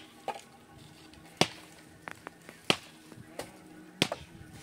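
A series of sharp knocks, roughly one a second, some coming in quick pairs.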